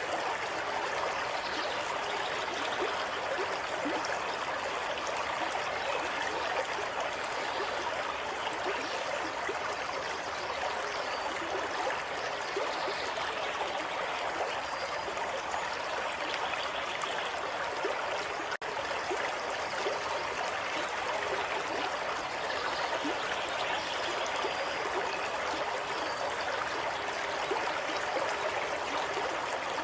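Water of a small stream flowing and trickling steadily, with fine bubbling detail. The sound cuts out for an instant about two-thirds of the way through.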